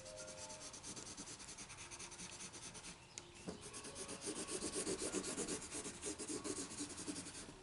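Light blue colored pencil shading on paper, a quick run of back-and-forth scratching strokes that grows louder about halfway through.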